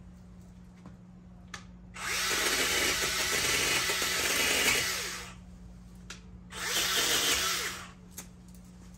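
Battery-powered Vanpore mini chainsaw running in two bursts, a longer one of about three seconds and then a shorter one, as it cuts through thin, hard woody shrub branches, with a few faint clicks in between.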